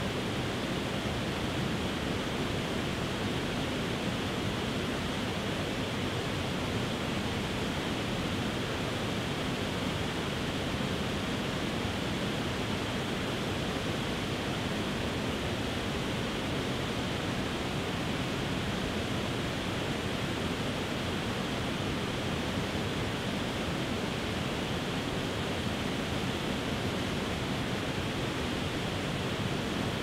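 Steady rush of water falling over a tiered rock waterfall into a shallow rocky creek, an even, unchanging roar.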